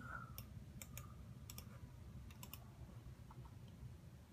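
Faint computer mouse and keyboard clicks, scattered in pairs and small groups, over a low steady hum.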